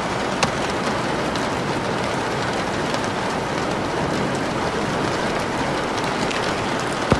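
Steady rain falling and pattering on a surface, with a few sharper drop hits standing out, one about half a second in and one near the end.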